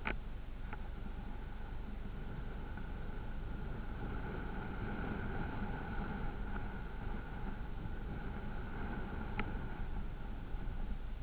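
Steady running noise of an off-road vehicle with wind on the microphone, broken by a couple of sharp clicks.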